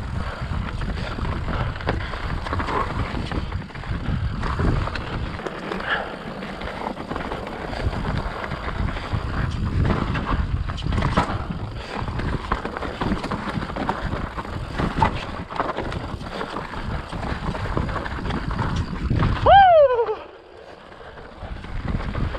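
Mountain bike riding fast down a dirt trail: tyre rumble over dirt and rock, rattling knocks from the bike and wind on the microphone. Near the end a short loud falling squeal, after which the riding noise drops off sharply.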